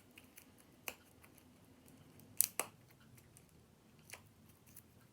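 A few light, sharp clicks and taps of board game pieces being handled: one a little under a second in, two close together around two and a half seconds in, and one more about four seconds in.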